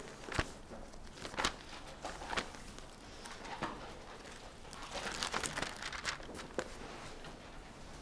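Bible pages being leafed through: a handful of short paper rustles and flicks about a second apart, with a quicker run of rustling about five to six seconds in.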